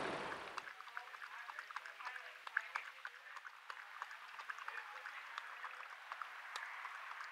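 Coyote lapping water from a tub: a quick, irregular string of small wet clicks.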